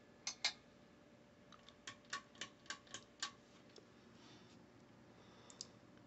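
Pull-chain switch on a Craftmade Piccolo ceiling fan clicking as the chain is pulled: two clicks, then a quick run of about six over a second and a half, then two more near the end.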